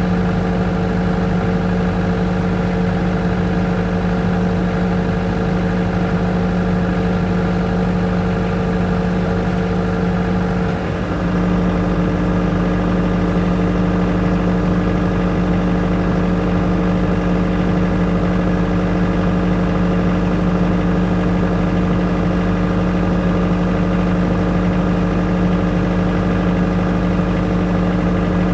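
Engine-driven generator of a neputa festival float running steadily with an even hum. About eleven seconds in its tone shifts briefly and it runs on a little louder.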